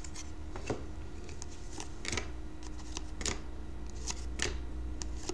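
2012-13 Panini Certified hockey cards slid and flicked against each other as a pack is thumbed through, a short scrape every second or so over a steady low hum.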